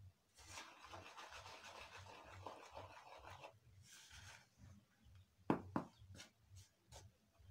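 Fingers rubbing and working flour, sugar and egg together by hand in a bowl: a faint, dry, scratchy rubbing for about three seconds, then a few short sharp taps near the end.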